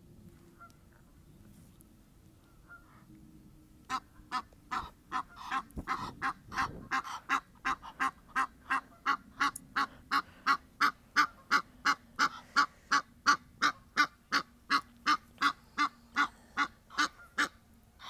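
Egyptian geese honking: a long run of loud, harsh, evenly repeated honks, about three a second, starting about four seconds in and stopping just before the end.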